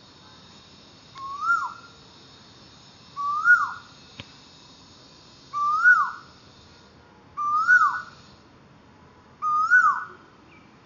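Asian koel calling: five loud, identical calls about two seconds apart, each a note that rises and then falls. Under them runs a faint steady high hiss that stops about two-thirds of the way through.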